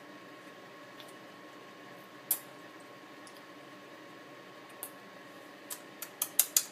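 Baby being spoon-fed solid food: a few short, wet clicks and smacks of mouth and spoon, one louder about two seconds in and a quick run of them near the end, over a low room hiss.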